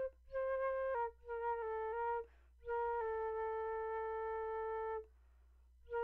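Background music: a slow solo flute melody of a few short notes, then one long held note that stops about five seconds in. After a short pause the next phrase starts near the end.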